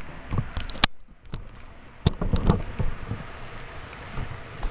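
Model trains running on the layout track: a low rumble with scattered sharp clicks, the loudest about a second and two seconds in.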